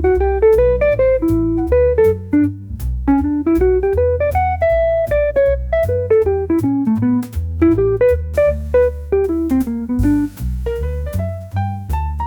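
Upbeat jazz background music: a plucked guitar melody rising and falling over a bass line and light drums.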